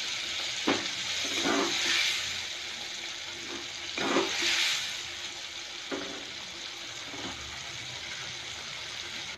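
Masala paste frying in oil in a steel kadhai, a steady sizzling hiss that swells a few times, with a steel spoon scraping and knocking against the pan now and then as it is stirred.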